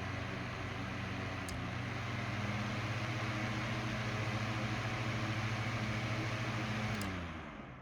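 Mainstays FN2006W 9-inch box fan running, a steady motor hum under a rush of air. A click comes about a second and a half in, and the fan runs slightly louder after it. Another click comes near the end, and the fan winds down with the hum falling in pitch and fading.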